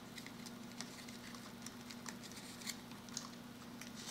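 Faint scattered clicks and light taps of fingers handling a small foam model plane and lifting off its magnetically held plastic canopy, over a low steady hum.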